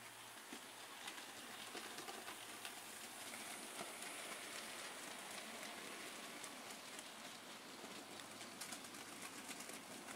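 Model railway coal wagons rolling along the track behind a model steam locomotive: a faint, steady rattle of metal wheels on rails with many fine ticks.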